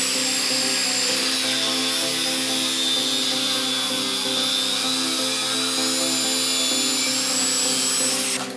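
Angle grinder with a cutting disc cutting through a metal piece clamped in a vise, a steady loud grinding with a high motor whine that sags in pitch as the disc bites and climbs back. It cuts off abruptly near the end, with background music underneath throughout.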